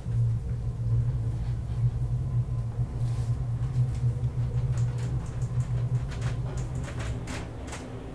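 DEVE (MB KONE) hydraulic elevator car travelling between floors with a steady low hum. The hum fades over the last couple of seconds as the car slows to arrive at the next level. A run of sharp clicks and knocks comes as it slows.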